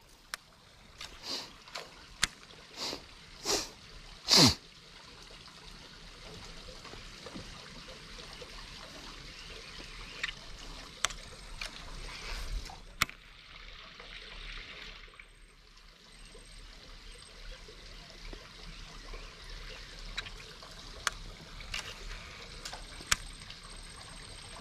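Water lapping and trickling against the hull of a small fishing boat. There are a few short swishes in the first five seconds, the last one sliding down in pitch, and then scattered light clicks.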